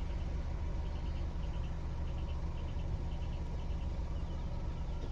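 Faint, high chirping in short groups of two or three, repeating over and over like crickets, over a steady low hum.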